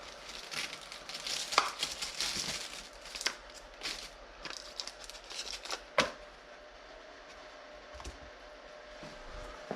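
Hands working with small wires and tools at a bench while soldering heated grip leads: crinkly rustling and sharp clicks and snaps for about six seconds, the loudest snap about six seconds in. After that it goes quieter, with a faint steady hum.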